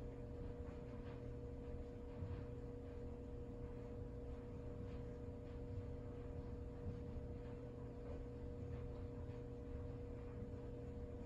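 Quiet room tone: a steady electrical hum with faint, scattered light ticks.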